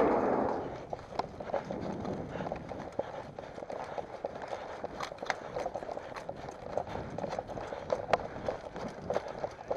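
Running footsteps with rustling and a steady scatter of sharp clicks, as a player moves off at a run.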